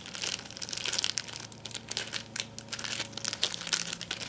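Plastic packaging crinkling as it is handled and worked open by hand: a dense run of irregular crackles.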